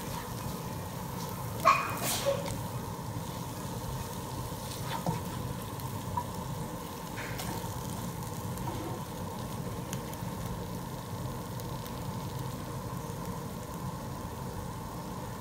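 Salted fish and green chili paste sizzling softly in a cast iron skillet while a silicone spatula stirs it. There are a few scrapes and knocks against the pan, the sharpest about two seconds in.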